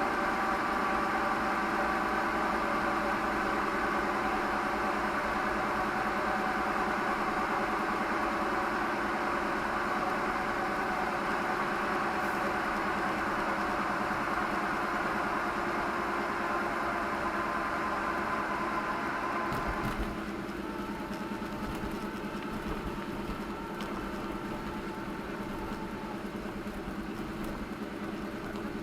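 Car engine running steadily, heard from inside the car as a hum with several steady tones. It becomes quieter about 20 seconds in, when its tones change.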